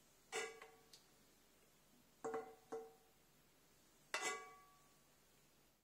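Metal spoon clinking against the inside of a nonstick frying pan while scooping out sauce: four sharp ringing knocks, each dying away in about half a second.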